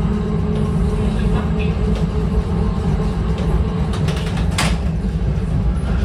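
Replica heritage streetcar running along its track with a steady low rumble, a few clicks, and a brief hiss about four and a half seconds in.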